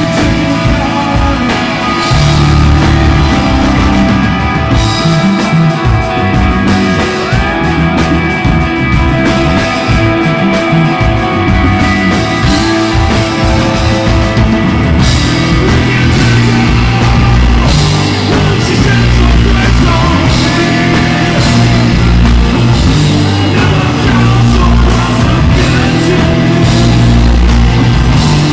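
Loud rock music with guitar, bass and drums, and some singing.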